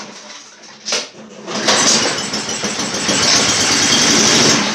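8 hp Honda mower engine pull-started and catching, running for about three seconds before dying away near the end. It fires only on the carb cleaner sprayed into the intake, because the carburetor is starved of fuel, probably by clogged jets.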